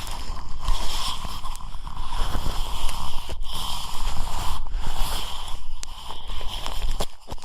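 Close-miked ear-cleaning sounds: an ear pick scraping and rubbing against the microphone, a continuous crackly rustle with brief pauses about three and a half seconds in and near the end.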